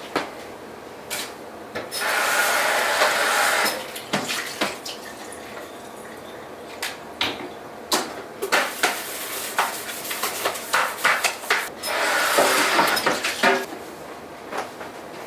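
Dishes and cutlery clinking at a kitchen sink, with many sharp clinks throughout. The tap runs in two spells, one about two seconds in and one near the end.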